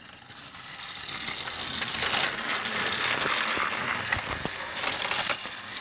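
Motorized Thomas & Friends TrackMaster toy engines running on plastic track and the walking bridge: a steady gear-motor whir that builds over the first couple of seconds, with a few plastic clicks.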